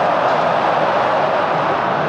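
Steady crowd noise from a football stadium, an even, unbroken wash of many voices with no single shout standing out.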